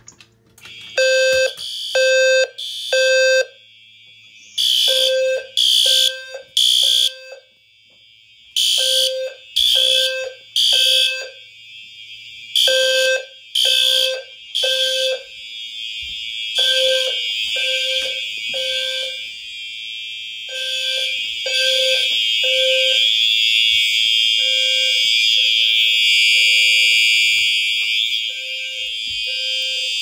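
Fire alarm system in alarm after a manual pull station is pulled. Several horns sound together: low-pitched and higher horns beep in the temporal-three pattern (three short beeps, a pause, repeated), starting about a second in. Under them runs a steady, continuous high horn tone that grows louder toward the end.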